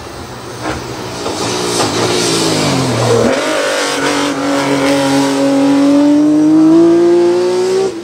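Ford Escort RS 2000 Mk2 hillclimb race car engine at full attack. Its revs fall over a second or two, then it pulls in one gear with the pitch rising steadily and getting louder for about four seconds, before cutting off abruptly at the end.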